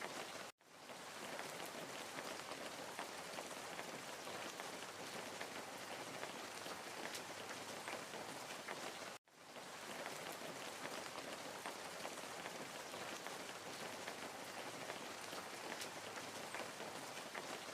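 Steady rain: an even hiss with scattered drop ticks. It cuts out suddenly twice, about half a second in and about nine seconds in, and fades straight back in each time.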